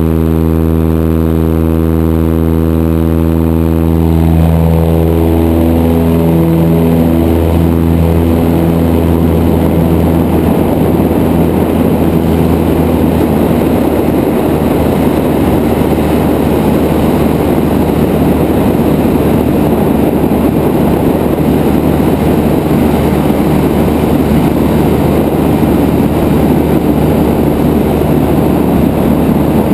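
Light single-engine bush plane's piston engine and propeller, running evenly at first, then throttled up about four seconds in for takeoff, its pitch rising. By about ten seconds the steady engine tone is buried in the loud rush of propeller and wind at full power as the plane climbs away.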